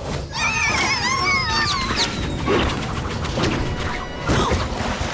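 Cartoon sound effects over background music: a wavering, warbling swoosh for a scene change, then a series of crashing thuds as rubber tyres fall onto a heap of tyres.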